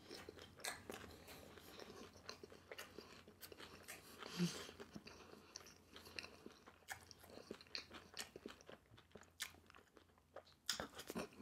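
A person chewing a mouthful of battered, deep-fried sweet and sour pork with the mouth closed: soft crunches and wet clicks, one louder bout about halfway through.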